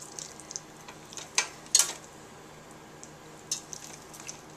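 Hand rubbing oil over the skin of raw whole chickens: a few short wet squishes and slaps, two close together about one and a half seconds in and one more about three and a half seconds in.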